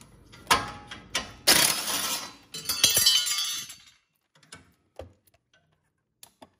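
Loose steel hardware clinking and rattling as a socket, extension and loosened engine mounting bolt are handled: a few sharp clinks, then loud rattling for about two seconds, then a few light clicks.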